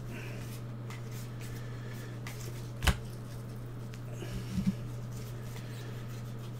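Basketball trading cards being handled and flipped through in a stack by gloved hands. There is a sharp tap about three seconds in and a couple of softer knocks a second or so later, over a steady low hum.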